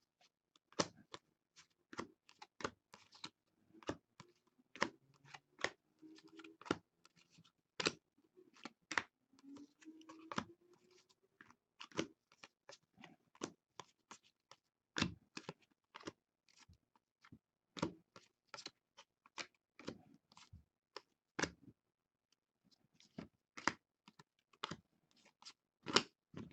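Trading cards being sorted by hand: a quiet, irregular string of short card snaps and taps, about one or two a second, as cards are flicked off the stack and laid onto piles.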